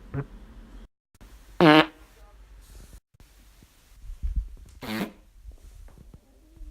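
Human farts, several short pitched ones in a row: a brief one at the start, the loudest about two seconds in, and another about five seconds in.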